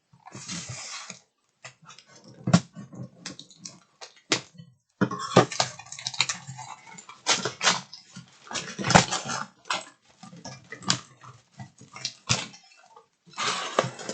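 A cardboard subscription box being opened and unpacked by hand: a run of clicks and knocks with bursts of rustling packaging.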